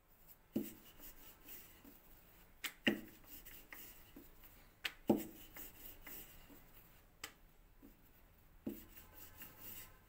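Wooden rolling pin rolling out a thin sheet of dough on a floured surface: soft rubbing strokes broken by several sharp knocks of wood on the surface.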